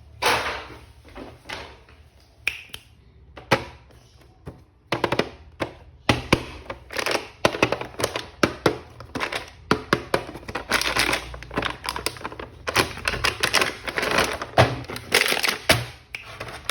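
Handling of plastic action figures and their packaging: an irregular run of clicks, taps and rustles, sparse at first and busier from about five seconds in.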